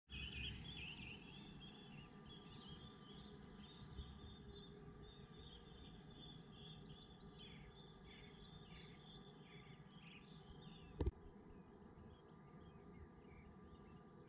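Faint birdsong, many short chirps and trills, over a low steady rumble of outdoor background noise, with a single sharp click about eleven seconds in.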